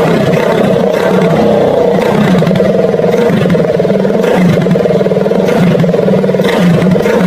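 Motorcycle engine running loudly and steadily through a homemade exhaust pipe made from a can, with a fast, even exhaust pulse.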